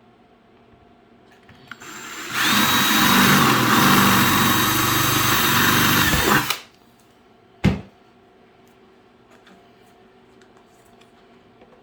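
Power drill boring a hole through the wall of a plastic 5-gallon bucket for a chicken watering nipple. It spins up and runs steadily with a high whine for about four seconds, then stops. About a second later there is one sharp knock.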